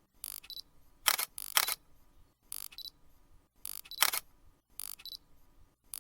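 Insect calling: short, sharp click-like bursts, some with a high-pitched tone, in a pattern that repeats about every second and a half.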